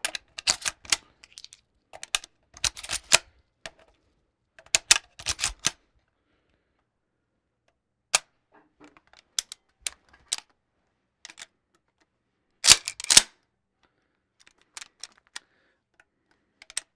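Bolt of a Winchester .22 bolt-action rifle being worked for a reload: sharp metallic clicks and clacks in several separate groups with pauses between, the loudest group about thirteen seconds in.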